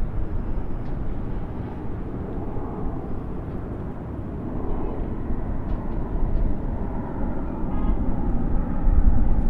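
Distant highway traffic: a steady wash of tyre and engine noise that eases a little midway and swells again near the end.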